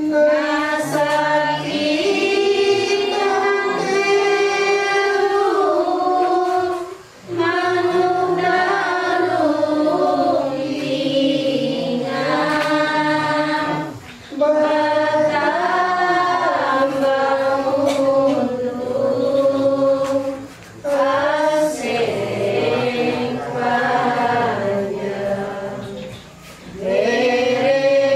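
A Kaharingan congregation, mostly women's voices, singing a worship song together without accompaniment. The song goes in long held phrases, each about six to seven seconds, with a short breath between them.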